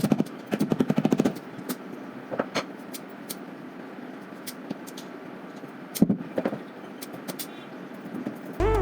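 Scattered sharp knocks and clicks over a steady background noise, with a quick rattle of about ten taps a second about half a second in and another cluster of knocks about six seconds in.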